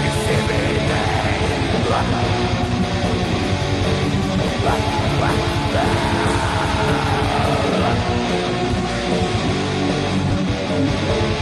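Heavy metal music: distorted electric guitars strummed in a dense, steady wall of sound over fast drumming.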